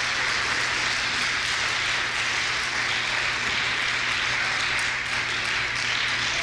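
Congregation applauding, a dense steady clapping in a large hall.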